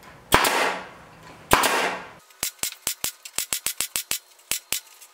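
Pneumatic stapler driving staples through chicken wire into a wooden frame: two sharp shots each followed by a short hiss of exhaust air, then from about two seconds in a rapid, uneven run of sharp clicks.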